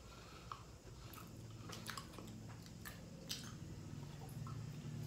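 Faint gulping and swallowing from a drink taken from a bottle tipped up to the mouth, with a few small wet clicks of the mouth and throat.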